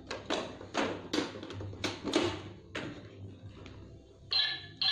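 Hard plastic toy-kitchen pieces knocking and clattering as they are handled and a compartment is opened and shut, about eight short knocks in the first three seconds. A brief steady high-pitched tone starts just before the end.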